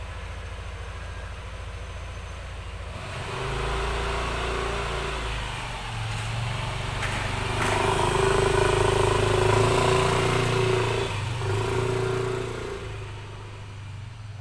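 A motor vehicle engine passing close by, growing louder over several seconds and then fading away.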